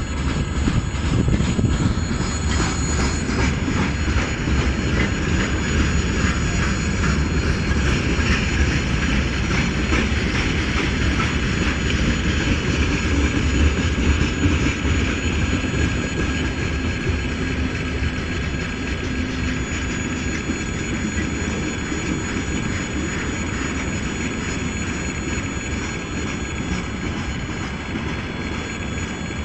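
Freight train wagons rolling past over a level crossing: the steady rumble and clatter of steel wheels on the rails, easing slightly near the end.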